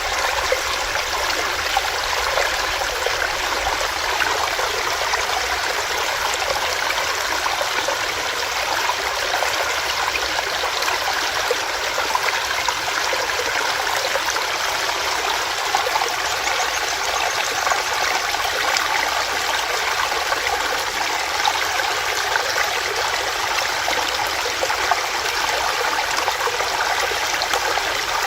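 Small stream running over rocks: a steady, even rush of water.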